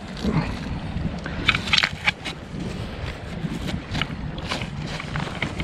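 Rusty mooring chain and a plastic pulley block being handled with gloved hands: a scatter of short clinks and scrapes, several in quick succession about one and a half to two seconds in and more near the end, over a steady low rumble.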